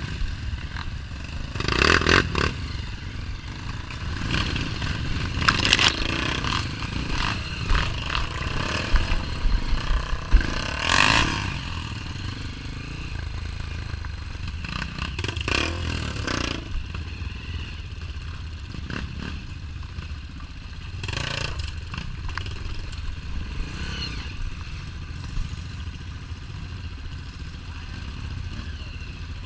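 Off-road trail motorcycle running at low revs over rough ground, its engine note rising and falling with the throttle. Several short, loud bursts of clatter and scraping break in, the loudest about eleven seconds in.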